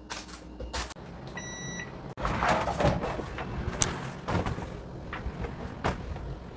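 Fruit being put away in a refrigerator: light knocks and handling sounds with one short electronic beep about a second and a half in, then irregular clatter and knocks of things being handled.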